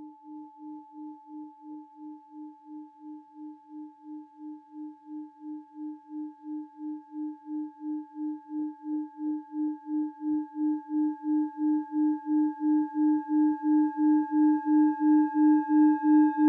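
Singing bowl rubbed around its rim: a low hum that throbs about three times a second under a steady higher ring. It grows slowly louder, with more overtones coming in near the end.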